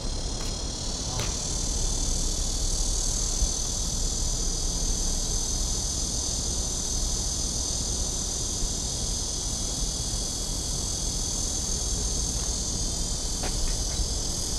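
Cicadas droning in a steady, high-pitched chorus over a low, steady background rumble.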